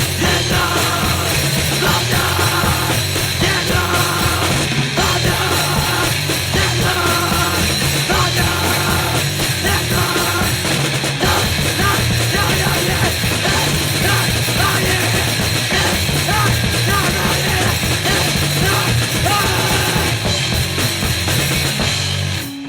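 Noisecore/grindnoise recording: a loud, dense wall of distorted noise with no let-up, cutting off abruptly near the end.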